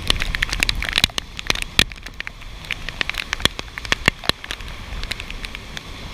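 Rain falling, with many sharp, irregular taps of drops landing close to the microphone over a low wind rumble.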